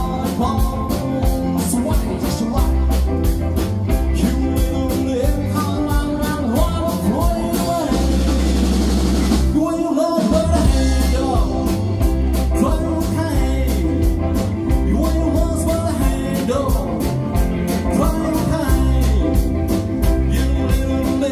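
Live band of electric guitars, bass, drums and keyboard playing an upbeat number with a steady beat and singing. About eight seconds in a cymbal wash builds, the band drops out briefly near ten seconds, then comes straight back in.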